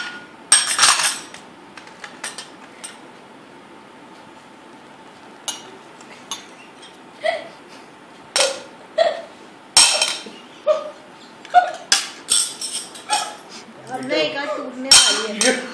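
Borosil glass bowls and Corelle plates being knocked and clinked together by a small child's hands: irregular sharp clinks with a brief ring. Two loud ones come right at the start, then a sparse stretch, and about halfway through the clinks come thick and fast.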